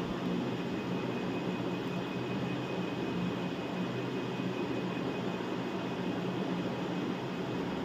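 Steady background hum with an even hiss, unchanging throughout and without any distinct knocks or clicks.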